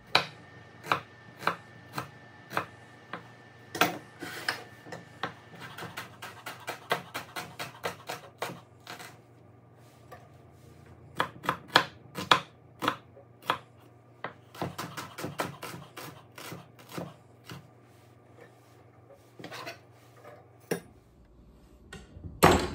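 Chef's knife mincing a shallot on a wooden cutting board: runs of quick chops broken by short pauses, with one louder knock near the end.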